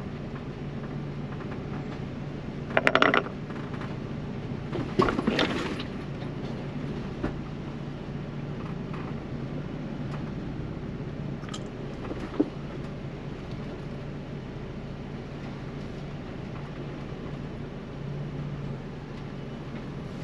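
Ford Bronco crawling slowly over a rough dirt trail: a steady low engine and drivetrain hum, with two bursts of rattling and clunking about three and five seconds in, and a few lighter single knocks a little later.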